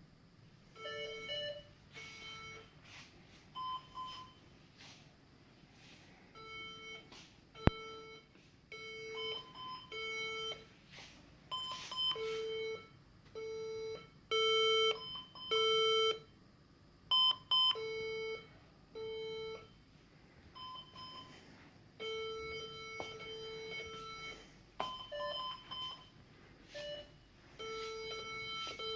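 HP EliteDesk 800 G2 desktop computer's internal speaker beeping during a BIOS update. The beeps come in an irregular run, short and longer ones, mostly one buzzy low tone with some higher tones mixed in.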